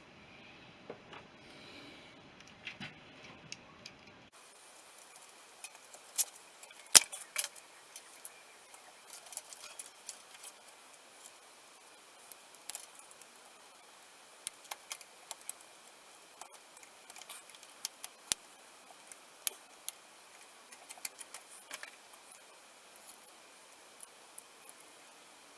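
Light metallic clinks and taps at irregular intervals as hand tools and small steel motorcycle parts are handled and set down. A low background rumble stops about four seconds in.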